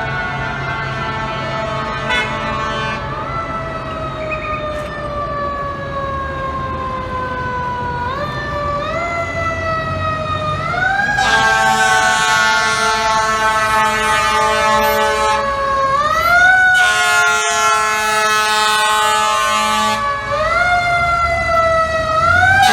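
FDNY fire apparatus siren winding up quickly and coasting slowly down in pitch, over and over. From about halfway, steady air-horn blasts sound over it, with one short break.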